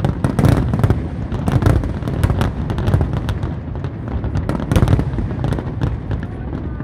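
Fireworks display: aerial shells bursting in quick succession, a dense, unbroken run of booms and crackles with several bangs a second over a constant low rumble.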